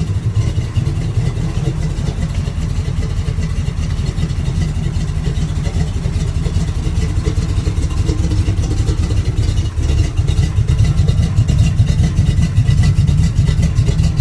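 A vehicle engine running loudly, with a rapid even pulsing and a heavy low rumble.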